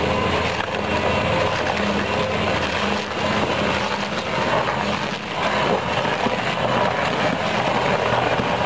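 Tractor-mounted, PTO-driven stump grinder boring down into a tree stump, its spinning cutter chewing the wood into chips over the steady running of the tractor's engine.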